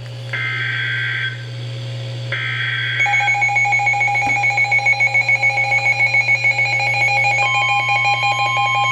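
Emergency Alert System broadcast: two short buzzing data bursts of the digital alert header, then a shrill, steady alert tone that pulses in loudness, with a further tone joining in near the end.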